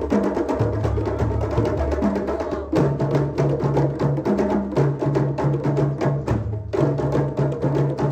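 Background music with a steady percussive beat over a repeating bass line of short notes.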